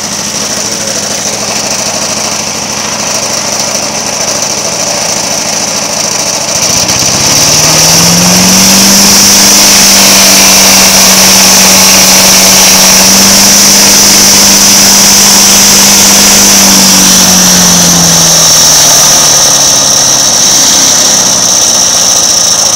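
Craftsman wood chipper's small gasoline engine running with a steady high whine. About seven seconds in it speeds up and gets louder, holds at high speed for about ten seconds, then slows back down near the end.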